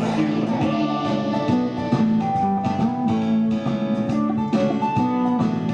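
Instrumental music led by guitar, with a steady beat.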